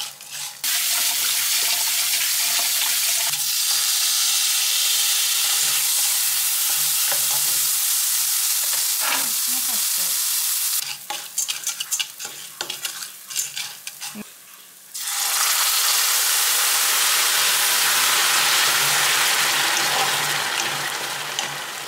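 Small pasta and rice toasting in hot oil in a stainless steel pan, sizzling steadily while a wooden spatula stirs and scrapes through it. About halfway the sizzle drops away for a few seconds, leaving scattered clicks and scrapes, then it comes back.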